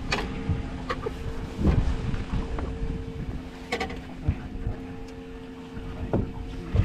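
Wind buffeting the microphone on a boat, over a steady mechanical hum, with a handful of knocks and thumps scattered through.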